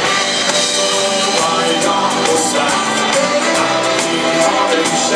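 Dansband music played live: a full band with a steady drum beat under held melody lines.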